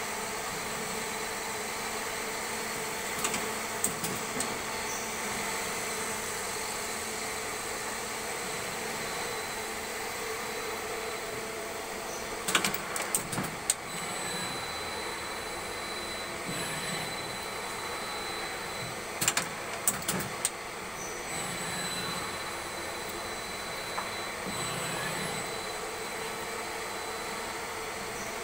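CNC machine running: a steady machine hum with a few clusters of sharp clicks and knocks, and faint rising and falling whines as the motors change speed.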